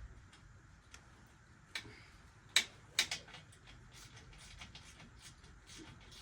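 Hands working on the dirt bike with tools and parts: a few sharp clicks and knocks, the loudest about two and a half seconds in and two more just after, with lighter ticking between.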